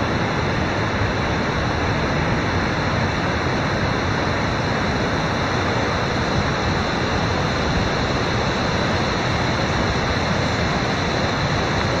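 Steady, even rush of a shallow mountain stream running fast over rocks.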